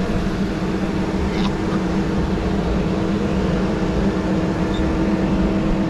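Engine running at a steady speed: a low rumble with a steady hum at a fixed pitch.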